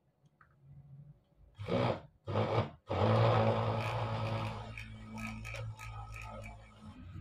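Small electric mini drill with a flexible shaft boring a hole in an aluminium heatsink: the motor is started in two short bursts, then runs steadily with a hum and a grinding scrape as the bit cuts, slowly getting quieter.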